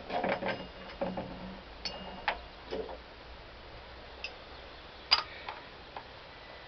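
Irregular metal clicks and clinks, some with a short ring, from a wrench and spring compressors working on a car's front suspension strut and coil spring. Several come close together in the first three seconds, with a sharp click about five seconds in.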